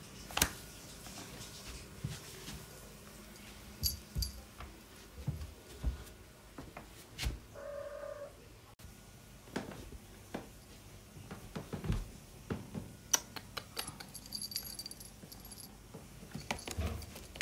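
Domestic cat giving one short, quiet call about halfway through, amid scattered soft knocks and rustles. Faint jingling of a collar tag comes twice.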